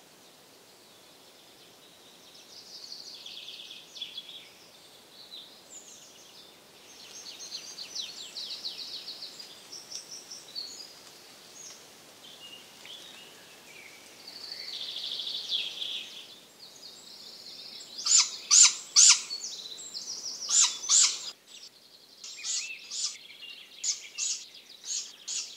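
Great grey owl chick giving high, raspy begging calls. They are scattered and soft at first, then from about eighteen seconds in loud and repeated about twice a second, as a parent arrives with prey and feeds it.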